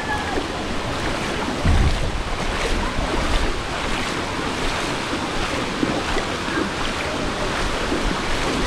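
Steady rushing noise of typhoon wind and water, with gusts buffeting the microphone. The strongest gust comes a little under two seconds in.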